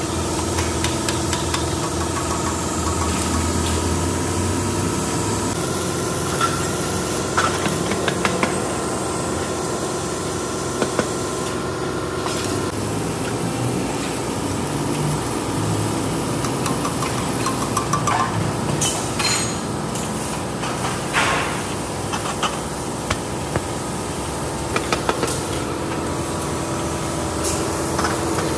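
Steady hum of workshop machinery, with scattered sharp metallic clinks and knocks as steel motorcycle silencer parts are handled and fitted into a silencer tube.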